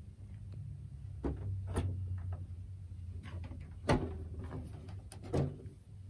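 Plastic front panel of a Panasonic CS-C9PKP split air conditioner's indoor unit being lifted open and handled: a few sharp clicks and knocks, the loudest about four seconds in, over a low hum.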